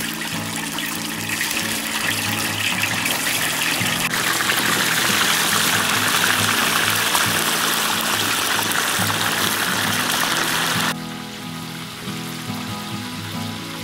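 Whole fish deep-frying in a large wok of hot oil: a loud, dense sizzle that builds over the first few seconds, then drops suddenly to a quieter sizzle about eleven seconds in. Background music plays underneath.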